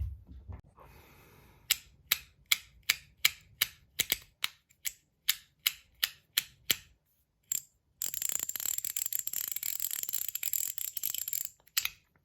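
Zirconium ratchet/haptic fidget coin clicking as it is turned: sharp single clicks, about three a second. About eight seconds in, they give way to a fast continuous run of clicks lasting some three seconds.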